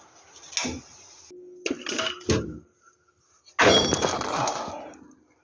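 Metal clinks and clicks as a spanner works a bolt on the front suspension and sway bar, with a brief metallic ring. About three and a half seconds in comes a louder sudden clatter that fades over about a second.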